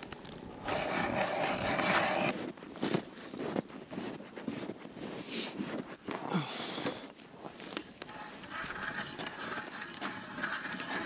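Hand ice auger being cranked down through lake ice: uneven grinding and scraping of the cutting blades, with occasional knocks.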